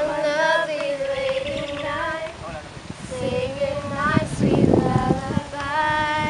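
A female voice singing a slow lullaby, holding long notes with gentle bends in pitch. A stretch of crackling, rustling noise comes about four seconds in.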